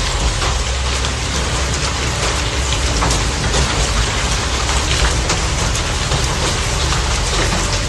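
Heavy rain pouring down in a dense steady hiss, with many sharp drop impacts and a constant low rumble underneath.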